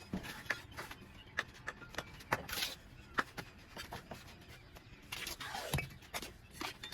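Mason's trowel working cement mortar: scattered sharp taps and clicks with a few short scrapes.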